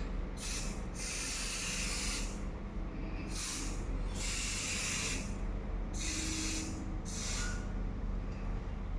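Aerosol can of magnetic particle ink spraying in about six short bursts, some brief and some over a second long, while a pie gauge is being dusted for magnetic particle testing. A steady low hum runs underneath.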